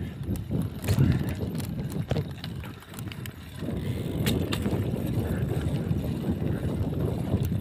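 Bicycle rolling along a rough asphalt lane: a steady low rumble of tyre and wind noise, with a few sharp clicks and rattles. The rumble dips briefly around three seconds in, then runs on evenly.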